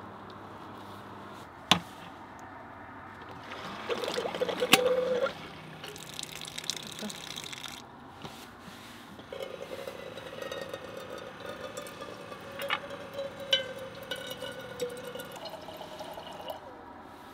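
Dometic GO battery pump faucet running and water pouring from it, first briefly about four seconds in, then steadily for about seven seconds as it fills a metal kettle. A sharp click comes about two seconds in.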